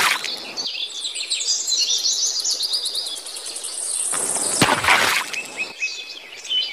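Background birdsong: many small birds chirping and trilling in quick high notes. A short rushing noise comes at the start and another just before five seconds in.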